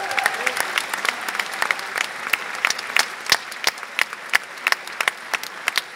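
Theatre audience applauding: a dense patter of many hands, with single loud claps standing out, the overall level slowly falling.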